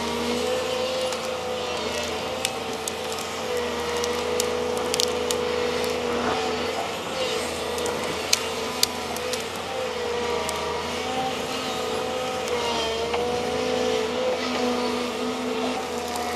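Volvo excavator's diesel engine and hydraulics running steadily under load, with a whine that wavers slightly in pitch. Several sharp cracks are scattered through it.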